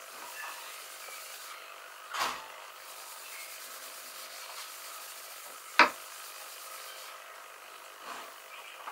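Gloved hand rubbing a cloth pad back and forth over a wooden tabletop, a soft steady rubbing. There is a brief louder scrape about two seconds in and a sharp knock on the wood near six seconds.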